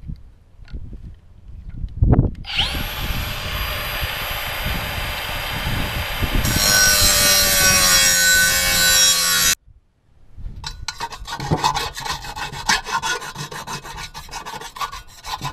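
Cordless Milwaukee angle grinder with a thin cut-off (zip) disc starts about two seconds in and cuts a relief slot into metal conduit, with a steady high whine that turns harsher and louder as the disc bites, then stops suddenly. After a short pause comes a run of quick scraping strokes of metal on metal.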